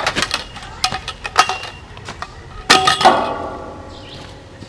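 Metal parts clanking and rattling in a quick series of knocks, with one loud ringing clang about three seconds in that dies away over a second.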